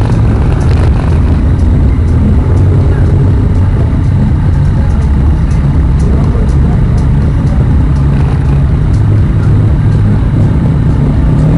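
Motorcycle engine idling close to the microphone, a steady low rumble, as the bike waits in a queue among other motorcycles.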